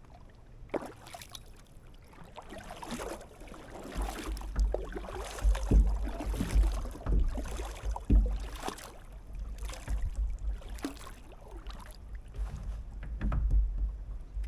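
Irregular water splashes and knocks around a kayak on a river. A low rumble comes in about four seconds in.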